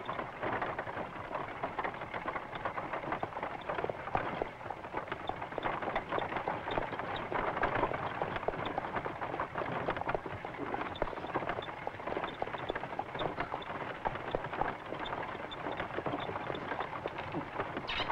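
A pair of horses pulling a wagon along a dirt track: hooves and the wagon's rattle in a continuous clatter.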